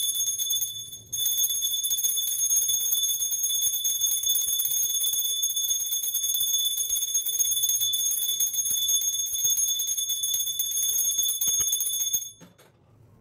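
Small brass puja hand bell (ghanti) rung without a break during an aarti, a steady high ringing. It drops briefly about a second in and stops just before the end.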